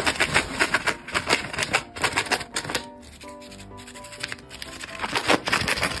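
Rosy-faced lovebird tearing strips from a sheet of paper with its beak: rapid crisp ripping clicks for the first few seconds, then again in a shorter run near the end, with light background music between.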